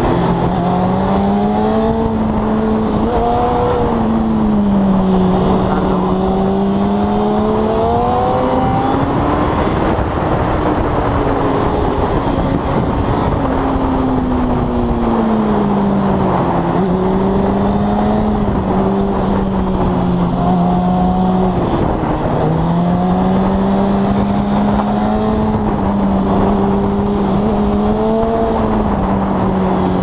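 Sport motorcycle engine heard from on board, pulling at high revs and rising and falling in pitch with the throttle through a series of bends. The pitch drops sharply several times as the rider shuts off or changes gear. A steady rushing noise runs underneath.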